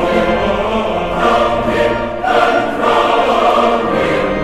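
A choir singing, many voices holding notes together.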